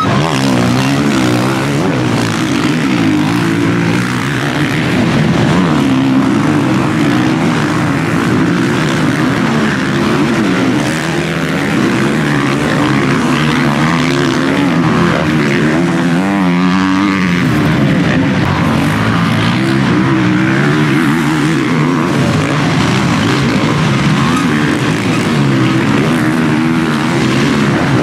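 Motocross motorcycle engines racing on a dirt track, several bikes overlapping, their pitch rising and falling continually as the riders rev through turns and jumps.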